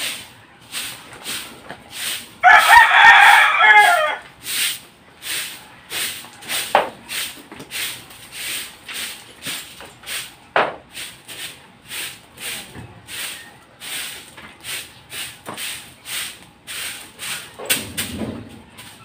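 Broom sweeping a dirt yard in steady scratchy strokes, about two a second. A rooster crows once, loudly, about two seconds in, for close to two seconds, and a chicken gives a couple of short calls later on.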